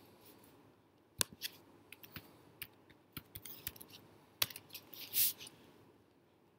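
Faint, scattered small clicks and taps, about eight over three seconds, then one brief papery swish a little after five seconds in: a hardcover book being handled.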